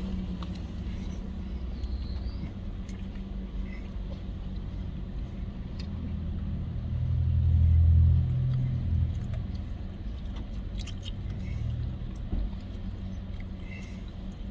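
Low steady rumble of a car heard from inside the cabin, swelling louder for about two seconds midway, then settling back.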